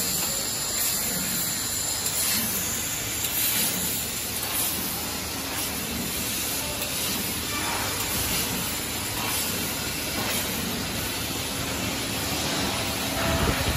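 Steady hiss and hum of running factory machinery, including a CNC tube laser cutter at work, with a brief louder knock near the end.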